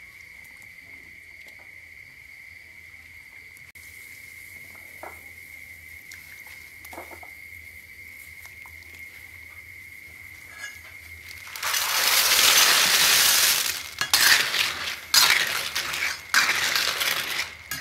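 Over a faint steady high tone, blood cockles go into a wok of boiling water with a loud rush about twelve seconds in. Then their shells clatter and clink against the metal wok as they are stirred with a metal ladle.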